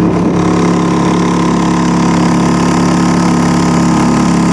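Honda outboard motor on a small motorboat running steadily at an even, unchanging pitch.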